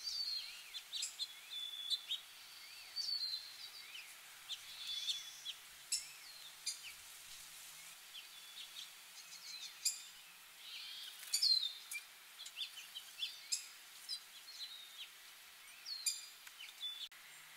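Wild songbirds calling around the garden: many short, sharp chirps and brief whistled notes, scattered irregularly over a steady background hiss.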